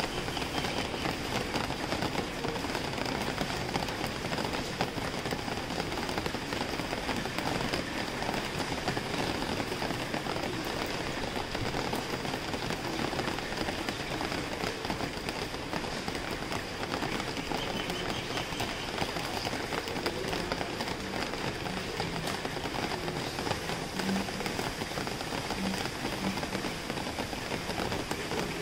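Steady rain falling, an even, unbroken wash of drops.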